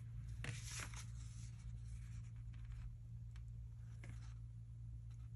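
Paper stickers being peeled from their sheet and pressed onto a planner page: a few short, soft scraping and rustling strokes, the clearest about half a second in and another near four seconds, over a steady low hum.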